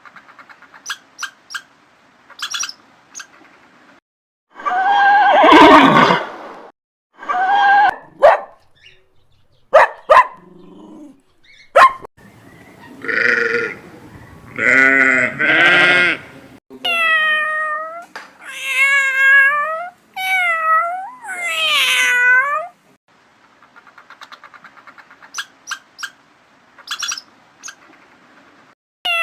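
A string of separate animal calls with pauses between them: a loud call about a fifth of the way in, shorter calls after it, then a run of five or so drawn-out calls that fall in pitch, each about a second long, a little past halfway.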